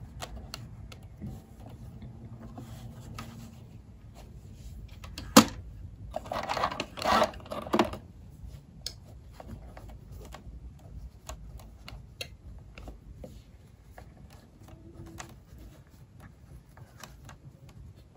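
Small electric mini sewing machine stitching cloth in short, uneven runs, with scattered clicks and ticks. A sharp click comes about five seconds in, then a louder two-second stretch of rattle.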